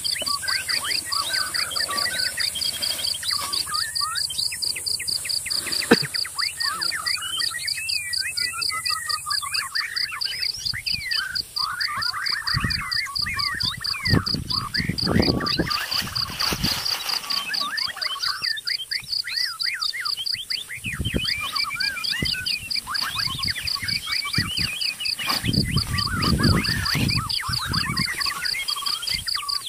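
Birds chirping and calling over a steady, rapidly pulsing high insect trill, with two stretches of low rumbling noise partway through and near the end.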